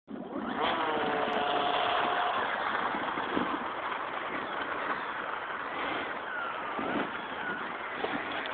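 Electric RC model Mustang airplane's motor and propeller running, with a whine that rises and falls with the throttle as the plane rolls along the runway.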